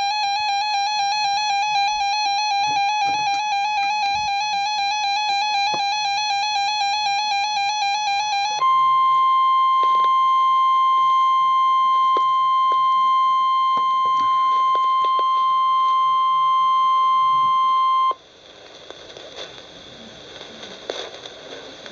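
A weather radio alert. It opens with a fast-warbling electronic alarm for about eight and a half seconds, then switches to the steady single-pitch 1050 Hz NOAA Weather Radio warning alarm tone for about ten seconds. The tone cuts off suddenly, leaving faint radio hiss and crackle before the warning message.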